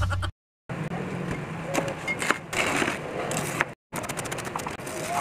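A knife slicing cabbage on a wooden cutting board: crisp crunching cuts with repeated sharp taps of the blade on the board. The tail of the music cuts off at the very start.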